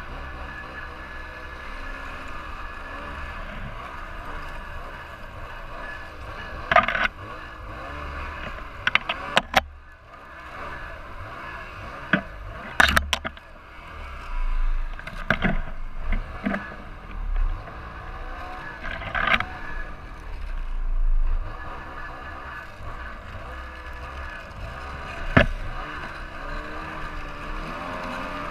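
Ski-Doo Summit 800 snowmobile's two-stroke engine running steadily, rising in revs a couple of times as the sled works through the trail. Several sharp knocks and scrapes cut in as branches and brush strike the sled.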